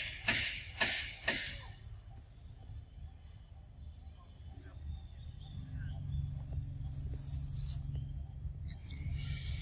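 Insect calling: a run of short raspy pulses, about two a second, that stops after a second and a half. Near the end a steady high hissing drone sets in.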